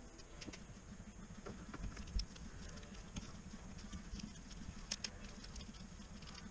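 Scattered light clicks and taps of gloved hands working on a car engine's intake plumbing, loosening and pulling the intake tube off the throttle body, over a steady low hum.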